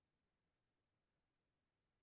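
Near silence: a very faint, steady background hiss and no other sound.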